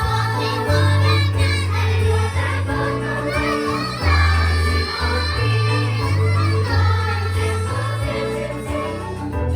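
A young cast singing a musical-theatre number together as a chorus over instrumental accompaniment with a bass line that steps from note to note.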